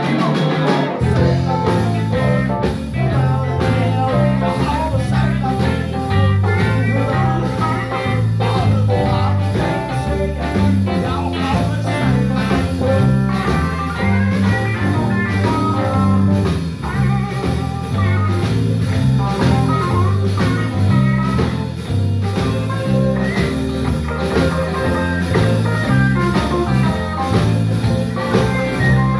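Live blues band playing: electric guitars over an electric bass line and drum kit, loud and steady throughout.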